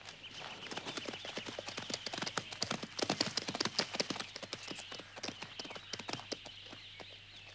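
Hoofbeats of several horses galloping on a dirt track: a rapid, dense patter of hoof strikes that grows louder toward the middle, then thins out and fades.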